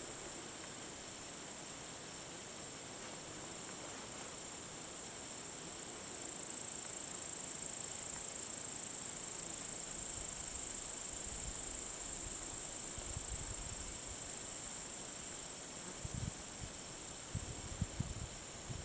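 A steady, high-pitched chorus of insects chirring, with a soft hiss beneath and a few low bumps near the end.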